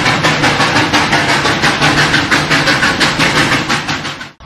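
Steam train sound effect: a quick, even chugging rhythm that fades out near the end.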